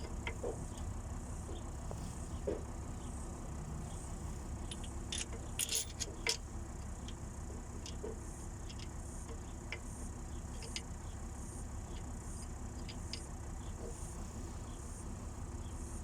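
Scattered light metallic clinks and taps of hand tools and engine parts during a bearing job, with a small cluster about five to six seconds in, over a steady low hum.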